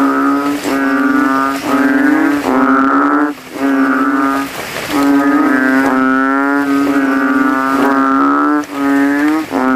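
Kodok kintel narrow-mouthed frogs (Kaloula) calling with inflated throat sacs. About ten loud, deep bass calls, each under a second, follow one another with only brief gaps.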